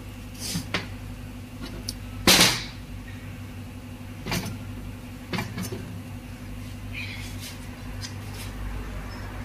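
Metal gearbox housing and cover parts knocking and clanking as they are picked up and handled, about half a dozen knocks with the loudest about two seconds in, over a steady low hum.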